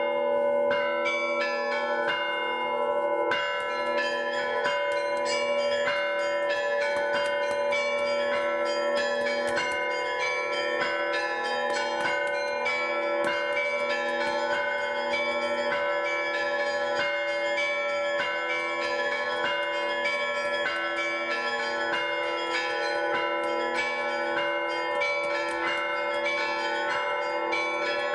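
Church bells rung together in the Russian manner: small bells struck in quick succession over the sustained ringing of larger bells, in one unbroken peal.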